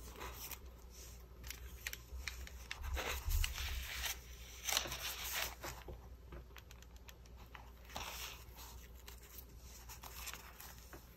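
Quiet rustling and crinkling of paper and lace being handled and pressed onto a journal page, in short scattered bursts, busiest a few seconds in.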